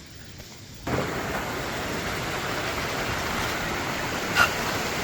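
Waterfall's rushing water, a steady loud hiss that cuts in abruptly about a second in, with one brief sharp click near the end.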